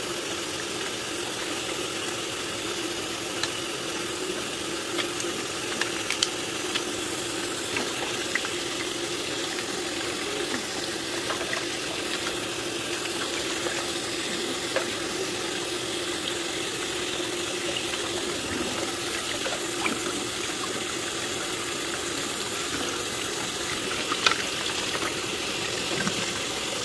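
Tap water running steadily into a metal pot while crabs are rinsed and cleaned by hand, with occasional small clicks and splashes.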